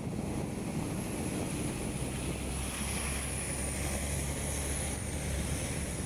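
Hong Kong double-decker tram running on its rails as it goes round a curve: a steady low rumble with a thin, high, wavering squeal held over it.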